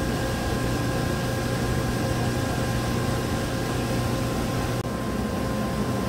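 1997 GM 5.7 L Vortec V8 idling steadily while warming up, a low even hum with a faint high whine over it; the engine is running smoothly after a new PCM. There is a brief drop about five seconds in.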